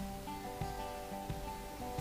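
Soft background music led by a plucked guitar, with held notes and gentle regular plucks.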